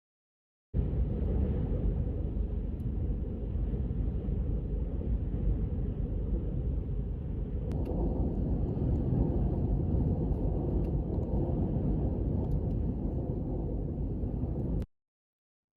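High wind buffeting the microphone: a dense, gusting low rumble with no tone in it. It starts abruptly about a second in, grows slightly brighter after a click about 8 seconds in, and cuts off suddenly near the end.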